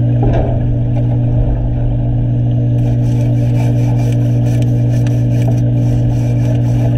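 Steady low machine hum heard underwater, with a few seconds of fine crackling starting about three seconds in.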